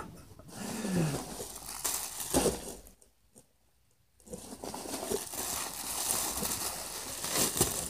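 Crinkling and rustling of plastic packaging and clothing being pulled out of a cardboard box and handled, with a gap of about a second in the middle where it drops almost to nothing.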